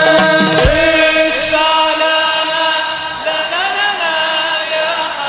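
Male voices chanting a sholawat in long held, slowly bending notes over music, with a low drum stroke a little under a second in.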